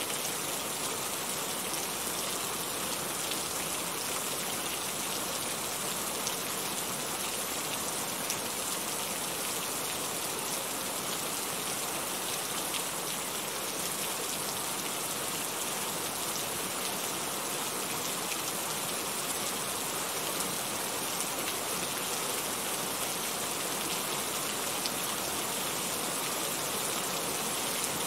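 Steady rain falling: an even hiss, with faint drop ticks scattered through it.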